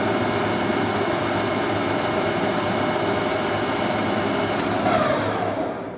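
Standard Modern 1660-C 17" x 60" lathe running with its spindle and chuck turning at 800 RPM, driven by its 7.5 hp motor: a steady mechanical running sound. Near the end the sound swells briefly and then falls away as the lathe winds down.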